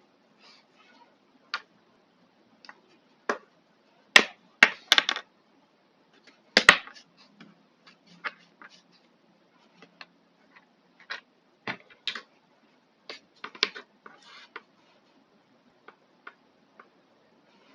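Irregular clicks, taps and small clatters of hand tools and small parts being handled during work on a hair trimmer's battery and wiring. The loudest clatters come about four to five seconds in and again about six and a half seconds in.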